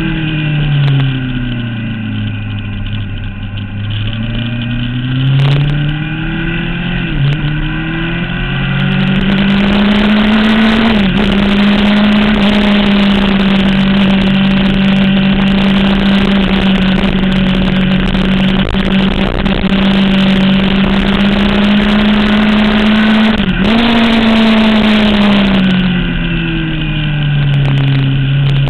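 Sportbike engine under way: the revs fall, then climb through two quick upshifts, hold steady at high speed with heavy wind rushing over the microphone, and drop away again near the end as the bike slows.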